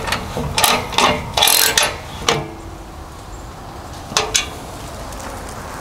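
Hand socket ratchet clicking in short runs as it tightens a bolt and lock washer into steel, several strokes in the first two seconds and two more about four seconds in.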